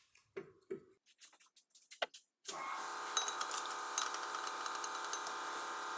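A few faint clicks of parts being handled, then about two and a half seconds in a small handheld power tool starts and runs steadily with an even motor whine and light rattling clicks.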